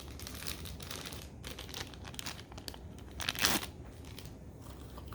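Small cardboard blind box and its packaging being torn and crinkled open by hand: a run of small crackles and rips, with one louder rip about three and a half seconds in.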